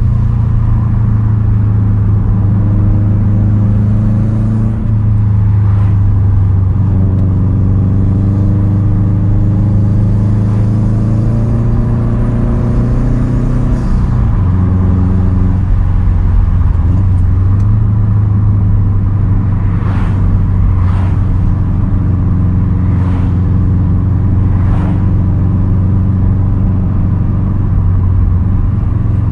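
2010 Subaru WRX STI's turbocharged 2.5-litre flat-four, breathing through a Tomei titanium single straight-pipe exhaust, running while driving. The engine note climbs steadily for several seconds under acceleration, drops abruptly about halfway in (a shift or lift off the throttle), then holds fairly steady at a cruise. A few short sharp sounds come in the later part.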